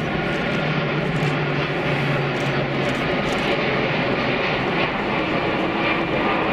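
Jet aircraft engines running, a steady, loud noise with a low hum through the first three seconds.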